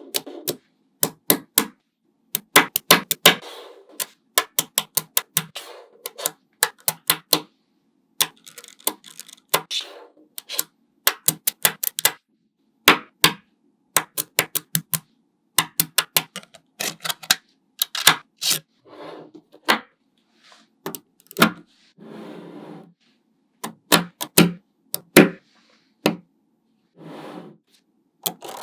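Small magnetic balls clicking and snapping together in quick irregular clusters as they are placed and pulled apart, with a few brief rattling stretches between.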